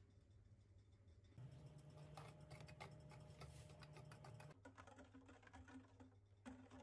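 Silicone-coated wire whisk beating a runny cake batter in a glass bowl: faint, quick, irregular clicks and taps of the wires against the glass, starting about one and a half seconds in.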